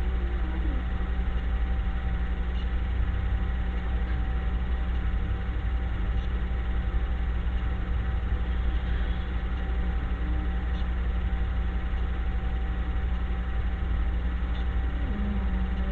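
A steady low mechanical hum with a faint constant tone above it, unchanging throughout, with a few faint scattered ticks.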